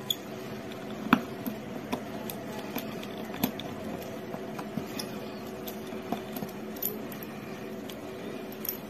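Scattered small clicks and light metallic ticks of a precision screwdriver backing out the tiny mid-frame screws of a smartphone, with a faint steady hum underneath.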